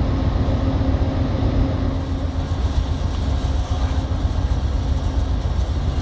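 A train's diesel locomotive idling: a steady low rumble with a faint steady hum that fades out near the end.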